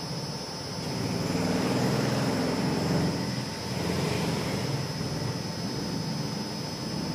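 A machine running with a steady low rumble that swells and eases a couple of times, over a faint steady whine.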